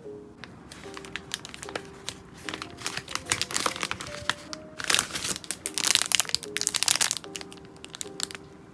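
Plastic packaging crinkling as it is handled, a dense crackle that is heaviest and loudest from about five to seven seconds in, with soft background music running underneath.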